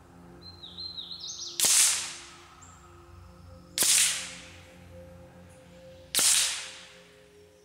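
Three shots from a suppressed Ruger Mark IV .22 LR pistol, heard from about 100 yards away: each a sharp crack with a short echoing tail, about two seconds apart. A bird chirps briefly before the first shot.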